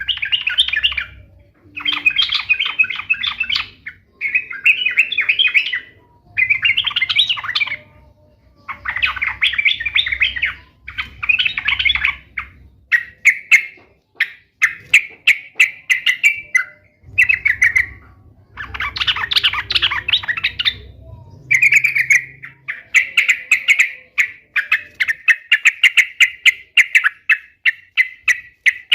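Yellow-vented bulbul (trucukan) singing in full voice: loud bursts of rapid chattering notes a second or two long, separated by short pauses. Near the end it breaks into a long run of quick repeated notes.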